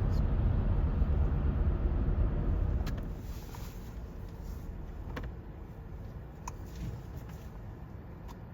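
Car road noise heard from inside the cabin: a strong low rumble that drops away sharply about three seconds in as the car slows to turn around, leaving a quieter engine and tyre hum with a few faint clicks.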